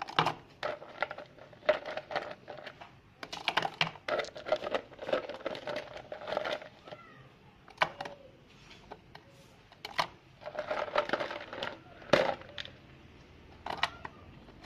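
Irregular clicking, rattling and crinkling of objects being handled, coming in bursts with short pauses between them.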